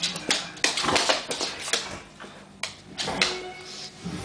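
Two dogs, a pit bull and a Staffordshire bull terrier, play-fighting: irregular scuffling and sharp clicks of paws and jaws on a wooden floor, with a brief lull about halfway through.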